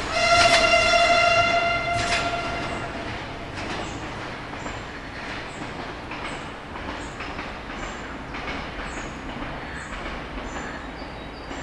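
Siemens Desiro diesel multiple unit sounding one long single-note horn blast of about three seconds just after the start. The train's running noise then fades as it moves away, with a couple of sharp clicks from the rails.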